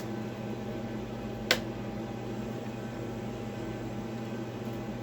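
Steady low hum of room background, like a fan or appliance, with a single sharp click about a second and a half in.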